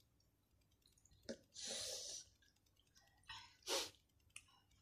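Quiet eating sounds: faint mouth clicks and chewing, with a breathy hiss lasting under a second about a second and a half in and a shorter sharp one near the end.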